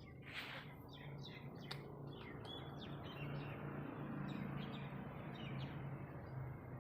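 Small birds chirping repeatedly in short calls over a steady low hum.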